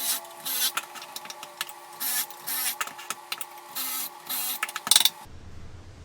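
Rhythmic rasping strokes of a hand tool working wood, about two a second, over a faint steady hum; a sharp louder scrape near the end, then the sound cuts to a low steady hum.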